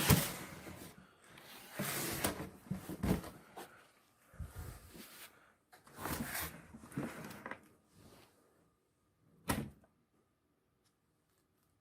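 Cardboard box and packing material being handled during unboxing: rustling and scraping in short bursts with quiet gaps between, and one sharp knock about three quarters of the way through.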